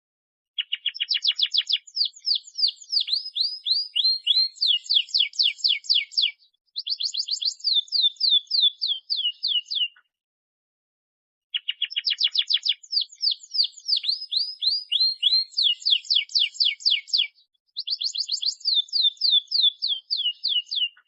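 Domestic canary singing two long bouts of rapid trills and rolls, each about nine seconds, with a pause of about a second and a half between them. The second bout repeats the same sequence of phrases as the first.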